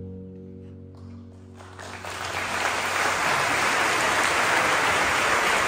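An opera orchestra's final soft held chord dies away. About two seconds in, the audience breaks into steady applause.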